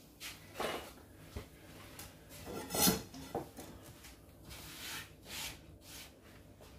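Kitchenware being handled: a series of short scrapes, rubs and knocks, the loudest about three seconds in.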